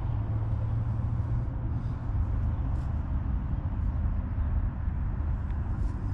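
Steady low rumble of distant engines, with a few faint light ticks on top.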